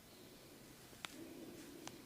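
Quiet head and ear massage: hands working on skin and hair with a faint rubbing, and two sharp clicks, one about a second in and one near the end.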